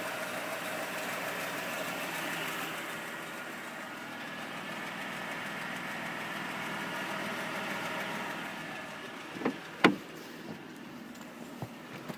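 Mercedes W164's 3.5-litre V6 petrol engine idling with the ticking, knocking clatter whose cause the owner is trying to find. It grows a little quieter about eight seconds in, and two sharp knocks sound near the end, louder than the engine.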